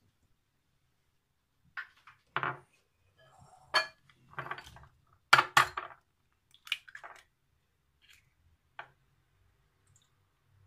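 Eggs being cracked on the rim of a mixing bowl: a series of short, sharp taps and shell cracks with small clinks against the bowl, the loudest a close pair about midway.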